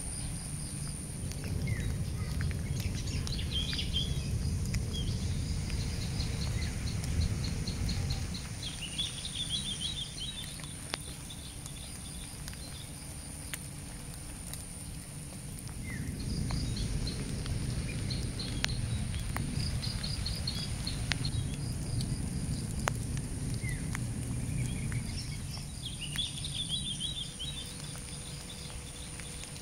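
Outdoor ambience of birds calling in short, quick series of high chirps over a steady high insect drone, with wind rumbling on the microphone for two long stretches and scattered light ticks.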